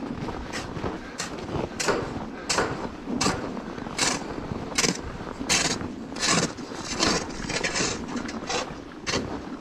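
Footsteps crunching through deep snow at a steady walking pace, about three steps every two seconds.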